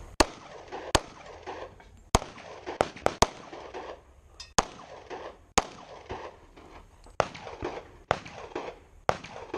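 Semi-automatic pistol fired in an IDPA course of fire: about a dozen sharp shots, unevenly spaced as the shooter moves between cardboard targets, some in quick pairs, each with a brief echo.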